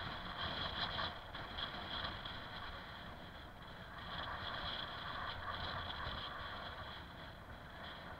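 Bicycle coasting downhill on an asphalt lane: tyres rolling and wind on the camera's microphone, a steady rushing noise that swells and fades a little.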